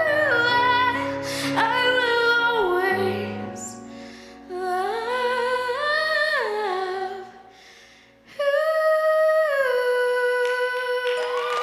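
Woman singing solo into a microphone with electric keyboard accompaniment: sung phrases with runs that slide up and down, then a long held note from about eight seconds in.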